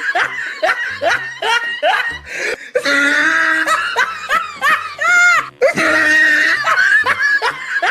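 Laughter: short rising bursts of a person laughing, about three a second, with a brief held higher note about five seconds in.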